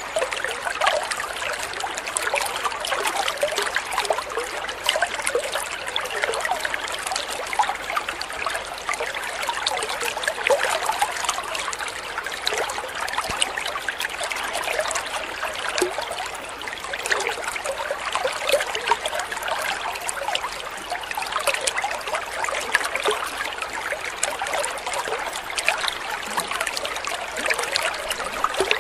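A thin stream of water from a spout falling into a koi pond, trickling and splashing steadily in a continuous patter of small splashes.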